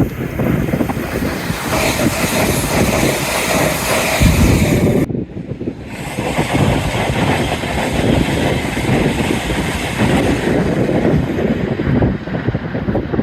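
Train passing at speed on a main line: a loud, steady rush of wheel-on-rail noise and wind. The sound dips briefly about five seconds in.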